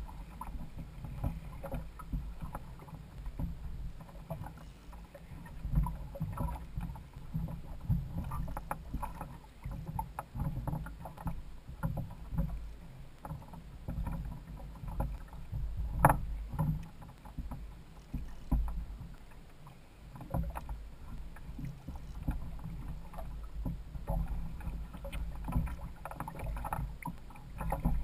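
Sea water sloshing and slapping against a Hobie Adventure Island kayak's hull and outrigger floats as it rocks on the swell, over a steady low rumble, with irregular knocks on the boat; the sharpest knock comes a little past halfway.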